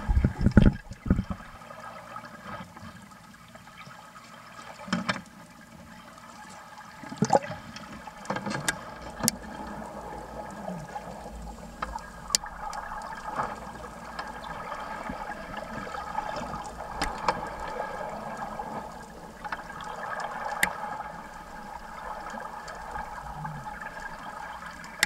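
Underwater ambience just below the surface: a steady muffled wash of water noise. There are a few loud low bursts in the first second or so, more around five and seven seconds in, and scattered sharp clicks.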